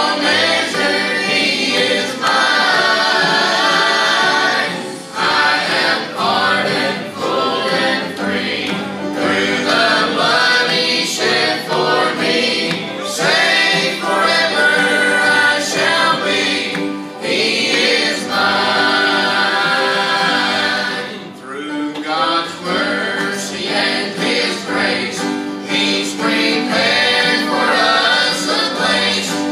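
A mixed group of men and women singing a gospel song in harmony, accompanied by acoustic guitar and piano.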